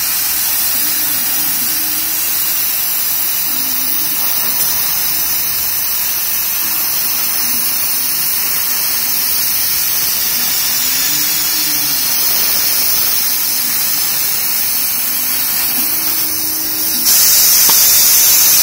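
Laser cutting machine running while it cuts foam board: a loud, steady hiss of air blowing through the cutting head's nozzle, with a faint whine from the head's drive motors rising and falling in pitch as the head moves. The hiss gets louder near the end.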